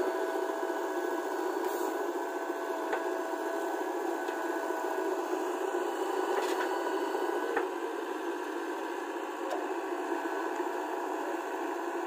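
JCB 3DX Plus backhoe loader's diesel engine running steadily under load, with a high hydraulic whine as the backhoe arm digs, swings and dumps soil. A few sharp knocks are heard, about three and seven and a half seconds in.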